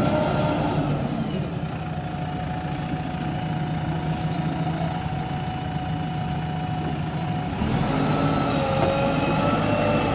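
JCB 3DX backhoe loader's diesel engine running under load as the machine tries to work itself out of deep mud. The revs drop about a second in, hold steady, then rise again near the end.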